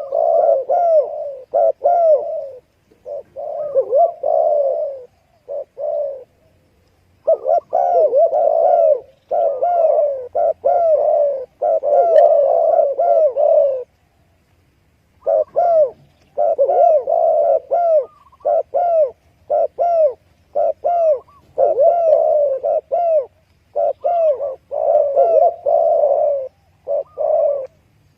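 Spotted dove cooing: runs of short, arching coos repeated in quick phrases, broken by two short pauses, about six seconds in and again about fourteen seconds in.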